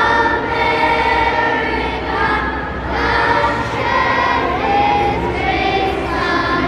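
Children's choir singing together, holding notes that change about once a second.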